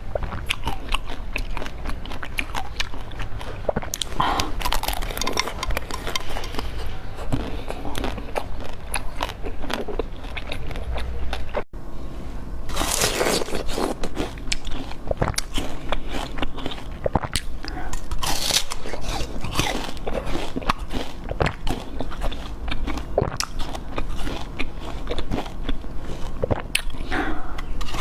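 Close-miked eating: repeated crisp bites and crunching into a frozen dessert, with wet chewing in between, with a brief break about twelve seconds in.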